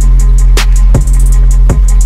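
Background music with a steady drum beat over deep bass and quick hi-hat ticks.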